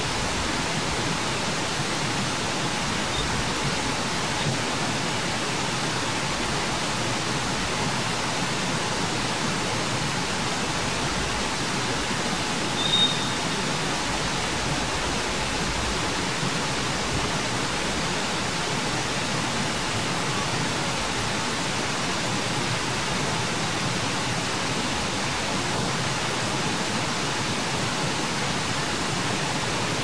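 A steady, even hiss of background noise with no voice or rhythm in it, broken about 13 seconds in by one brief high chirp.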